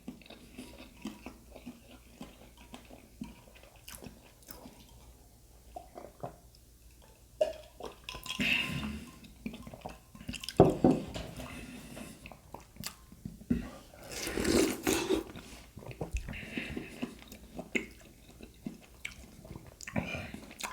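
Close-miked chewing and mouth-smacking while eating, with many small wet clicks and a few louder bursts, the sharpest a single knock about eleven seconds in.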